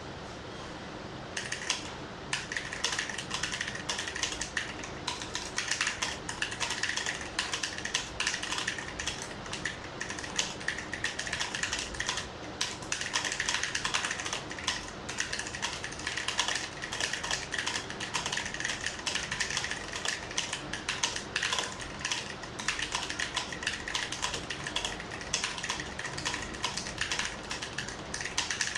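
Fast continuous typing on a Cosmic Byte mechanical keyboard with clicky blue switches: a dense, uneven stream of sharp key clicks starting about a second and a half in, at a pace of over 100 words per minute.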